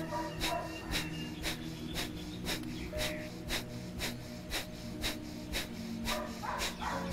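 Kapalbhati breathing through one nostril: short, forceful nasal exhalations, about two a second, with passive inhalations between.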